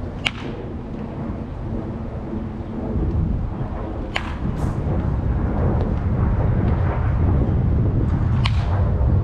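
Baseball bat hitting tossed balls in batting practice: three sharp cracks about four seconds apart, over a steady low rumble of wind on the microphone.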